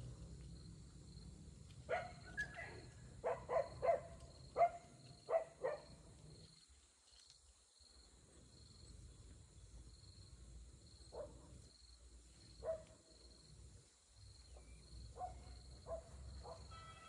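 Short, sharp pitched animal calls, about ten in quick succession over the first six seconds and a few more scattered later, over a faint insect chirp that pulses evenly, a little more than once a second.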